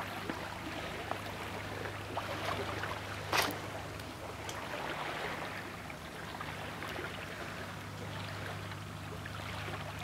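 Calm sea water washing softly against the shore, a steady gentle wash with a low hum underneath and one short click about three and a half seconds in.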